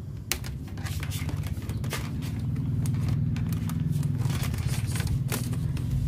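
Light clicks and rustles of a camera cable being handled against plastic wiring clips and trim, over a steady low hum.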